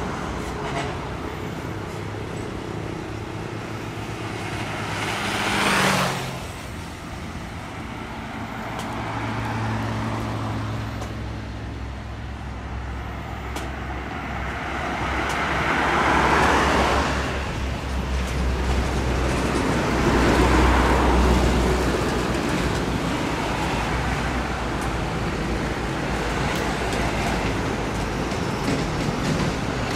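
Heavy road traffic with diesel truck engines running at low speed. A vehicle passes close about six seconds in, its engine note falling as it goes by, and more vehicles swell past around sixteen and twenty seconds in.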